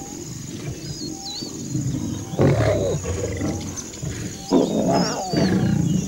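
Lions feeding on a buffalo carcass, growling low and rough, with two louder calls about two and a half and four and a half seconds in. Faint high bird chirps come in a few times.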